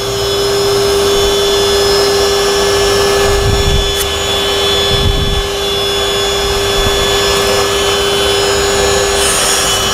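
Wet-and-dry vacuum cleaner running with a steady whine, its upholstery nozzle drawn over a damp fabric car seat and sucking up the lifted foam and dirt. Two short, deeper rushes come a few seconds in as the nozzle works the cushion.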